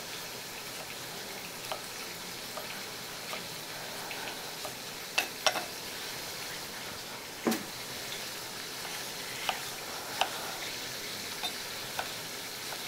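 A kitchen knife dicing tomatoes on a wooden cutting board, about a dozen irregular sharp taps, the loudest about seven and a half seconds in, over a steady hiss of minced meat frying in oil.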